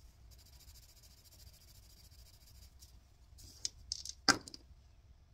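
A pair of small dice clicking together in a cupped hand, a quick run of clicks over about a second near the end, one sharp clack the loudest.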